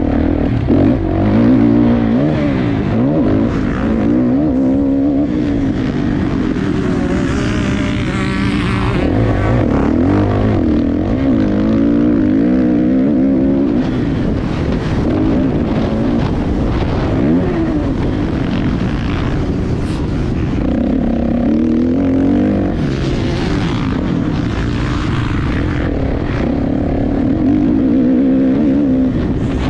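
Motocross dirt bike engine heard close from on board, revving up and falling back again and again as the rider accelerates, shifts and rolls off around the track. A rushing hiss rises over it about eight seconds in and again near twenty-four seconds.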